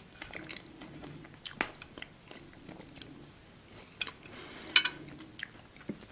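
Close-miked soft chewing of meringue roll cake, broken by several sharp clicks of a metal fork against a ceramic plate as the cake is cut.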